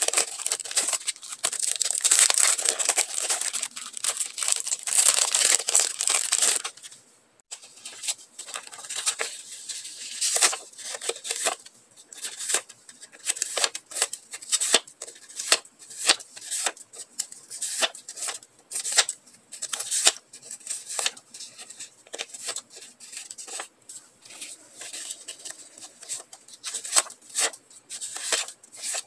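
Clear plastic sticker packet crinkling and rustling for about six and a half seconds, stopping suddenly. Then a stack of die-cut paper stickers is leafed through, one short papery flick and rustle after another.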